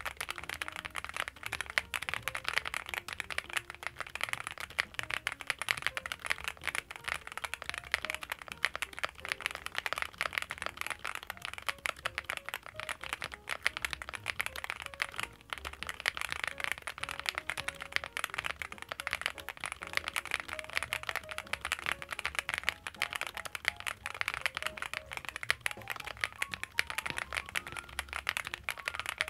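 Fast, continuous typing on a Cupid-65 65% gasket-mount custom mechanical keyboard, with a rapid stream of keystroke clicks and clacks and a short pause about halfway through.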